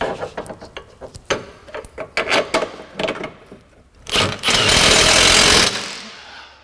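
Metal clicks and knocks as the brace and its bolts are handled, then a cordless power tool runs a bolt in for about a second and a half, a loud mechanical rattle that dies away near the end.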